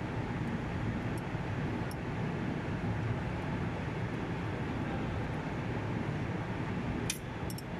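Steady low drone of running air-conditioning plant machinery, with a few light metallic clicks near the end as a wrench works on a sensor terminal fitting.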